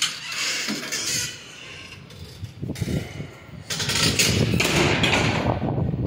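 A metal door bolt scraping as it is slid back, then, from a little past halfway, a loud rough rushing noise: wind buffeting the microphone at an open balcony doorway.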